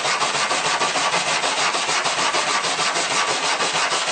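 Small stainless steel wire brush scrubbing bare aluminum sheet in rapid, even back-and-forth strokes. It is cleaning oxidation and contaminants off the spot to be welded.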